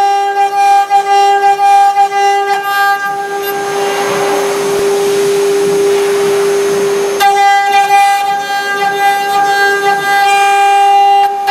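Spindle of a Sinmic SC2030 CNC router running with a steady high whine as its bit routs grooves in PVC sheet. For about three seconds in the middle the whine sinks under a hissing noise, then comes back sharply.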